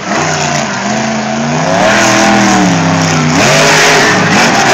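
El Toro Loco monster truck's supercharged V8 engine revving hard under full throttle. The pitch climbs and holds, drops sharply about three and a half seconds in as the truck leaves a ramp and goes airborne, then swings back up.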